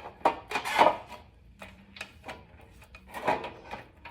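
Motorcycle roller drive chain being handled and fed onto a sprocket: a few irregular metallic clinks and knocks of the links, loudest about a second in and again near the end.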